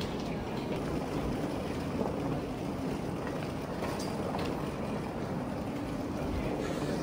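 Steady rumble and clatter of moving walkways (airport travelators) running, with a few faint ticks.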